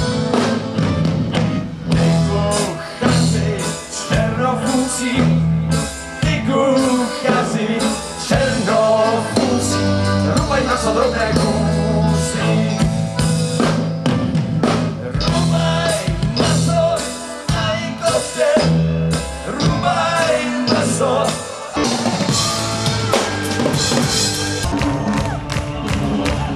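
Live folk-rock band playing: fiddle, accordion, electric guitar and drum kit, with a male voice singing over a steady beat.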